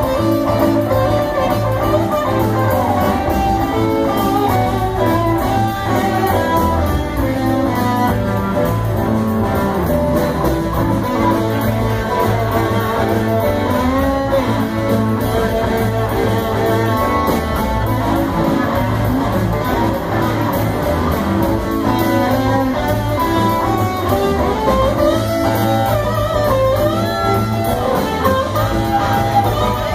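Live band playing loud amplified music with electric guitars.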